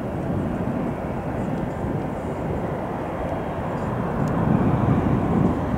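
Twin turbofan engines of a Cessna Citation XLS+ business jet running as it rolls and turns on the runway, a steady jet hiss that grows louder about four seconds in.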